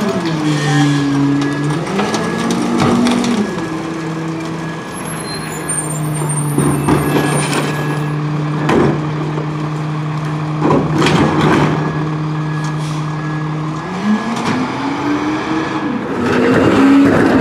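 Hino garbage truck's diesel engine: its revs drop near the start, it runs steadily through the middle, and the revs climb again near the end. A few metal clanks sound in between.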